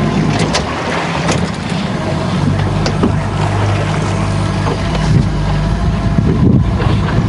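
Outboard motor running steadily as the small boat pulls away from the mooring.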